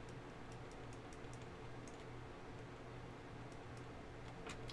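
Faint, scattered clicks and taps of computer input devices, with a quick cluster of clicks near the end, over a steady low hum.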